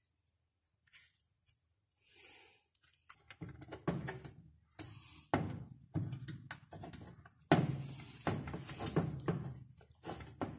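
Irregular knocks, thunks and clatter of brushcutter engine parts and hand tools being handled on a workbench, a few faint taps at first, then a busy run of them from about three seconds in.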